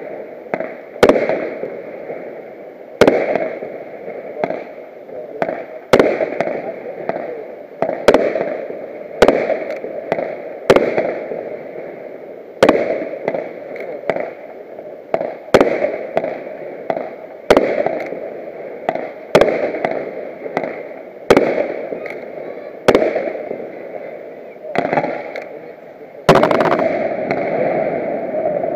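Aerial fireworks shells bursting one after another, some two dozen sharp bangs about one to two seconds apart, each trailing off in a rumbling echo. A louder, longer burst begins near the end.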